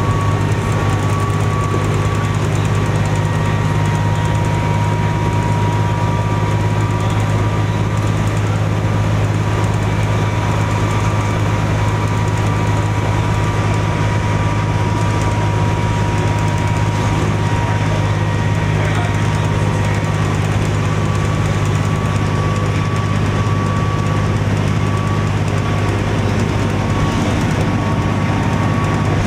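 1998 New Flyer D40LF transit bus's Cummins ISC six-cylinder diesel running at steady revs, heard aboard the bus: a deep, even drone with a faint steady whine above it.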